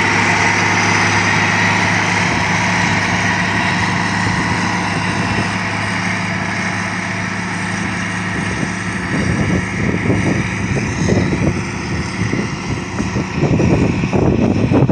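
Heavy construction machine's engine running steadily. From about halfway in, irregular gusty rumbles join it.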